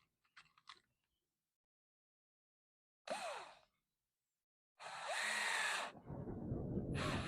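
A cordless drill driving screws into pallet wood in short bursts, its motor pitch falling in one burst and rising in the next, then a rougher stretch of driving near the end.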